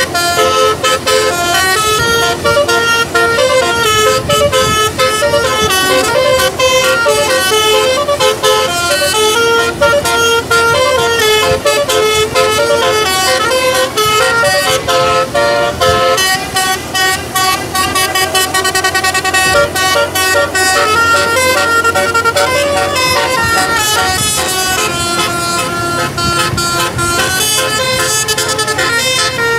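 A tour bus's 'telolet' musical air horn playing a tune, its notes stepping quickly from one pitch to the next. About halfway through, the tune changes to longer held notes.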